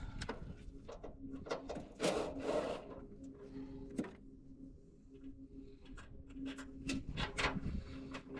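Scattered clicks, knocks and rubbing of car parts being handled by hand as the air intake box is worked off the engine bay.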